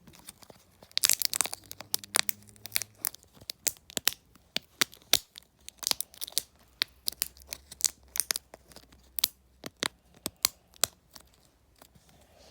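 Homemade fidget toy being squeezed and handled, giving irregular sharp crinkling clicks, densest about a second in and thinning out near the end.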